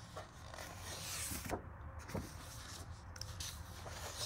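Faint rustling and rubbing of paper as colouring-book pages are turned and handled, with a few soft brushing ticks.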